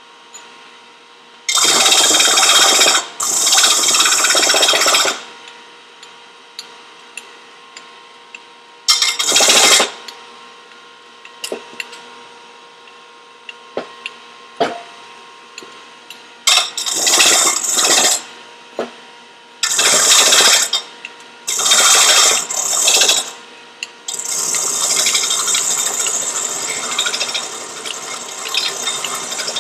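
Disc sander with a 40-grit pad grinding the flange face of a cast-iron turbocharger turbine housing in about seven loud, harsh passes, the last one longest, with the motor humming steadily between passes. The housing is being flattened so that its gasket will seal again.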